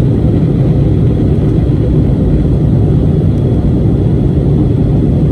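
Steady, deep roar of a jet airliner's engines and rushing air, heard from inside the passenger cabin in flight.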